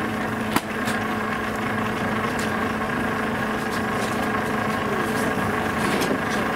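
Steady machine hum holding several even tones, with one sharp click about half a second in and a few faint ticks after.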